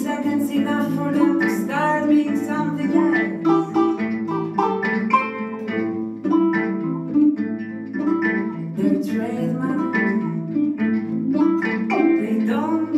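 West African calabash harp-lute plucked in a repeating melodic pattern over a low bass line, with a woman singing over it.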